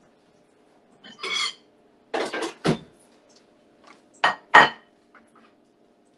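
Crockery being handled and set down on a kitchen worktop. A short scrape comes about a second in, then three clinking knocks close together, and two louder ringing clinks a little after four seconds, over a faint steady hum.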